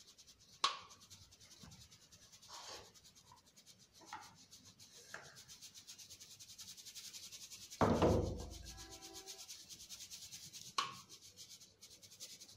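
Homemade rice flour being sifted through a plastic mesh sieve shaken quickly over a metal tray, separating the fine flour from the coarse rice semolina: a soft, fast, even swishing. There are a few sharp taps, and one louder thud about eight seconds in.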